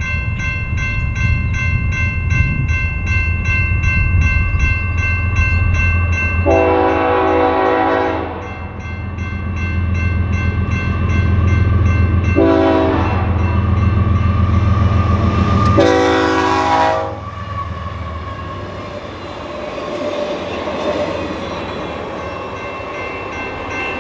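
A grade-crossing bell rings steadily and rapidly as a diesel locomotive leading a BNSF track geometry train rumbles toward the crossing and sounds its air horn for it: a long blast about six seconds in, a short one about twelve seconds in, and another long one about sixteen seconds in. The low engine rumble falls away after the last blast.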